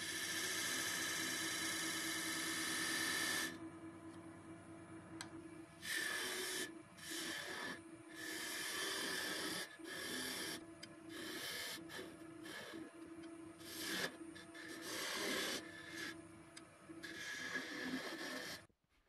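Wood lathe running with a flat scraper cutting the inside of the spinning stone pine vase's opening: one long scraping cut at first, then a series of shorter scraping passes of about a second each, over the steady hum of the lathe. The sound stops abruptly just before the end.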